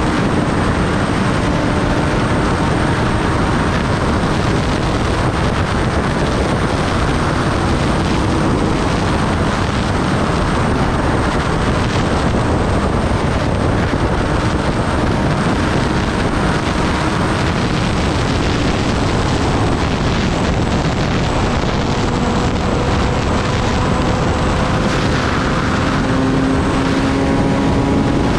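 Kawasaki Ninja ZX-10R at riding speed: steady wind rush over the microphone, with the inline-four engine's note faint underneath and its pitch climbing gently near the end.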